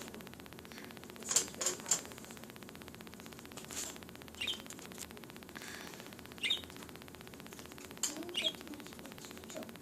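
Budgerigar giving short, high chirps about every two seconds, with a quick run of three sharp clicks about a second and a half in.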